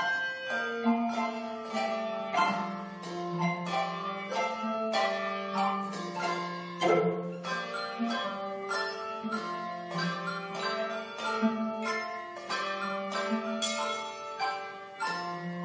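Handbell choir playing a tune: bells struck one after another and in chords, each note ringing on and overlapping the next.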